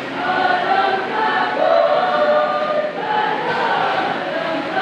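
Church choir singing a hymn in parts, held notes moving from chord to chord in phrases of a second or so.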